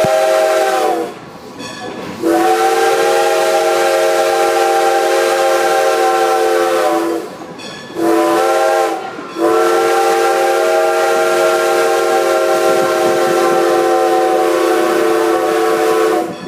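Steam locomotive chime whistle sounding a chord of several notes in the grade-crossing pattern: a long blast ending about a second in, then a long, a short and a long blast. This is the signal for approaching a road crossing.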